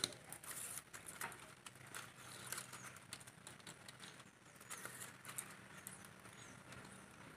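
Green date palm leaves being torn lengthwise into strips by hand: faint, irregular rustling and ripping, with a sharp click right at the start.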